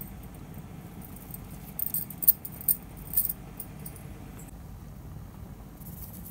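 A short flurry of light clinks and jingles about two to three seconds in, over a low steady hum, as chopped coriander leaves are added to a pan of dal.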